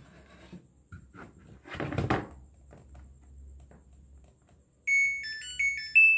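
Samsung front-load washing machine's display board playing its short power-on tune of stepped electronic beeps about five seconds in, the sign that the control boards have powered up. Before it come scattered clicks and rustles of handling.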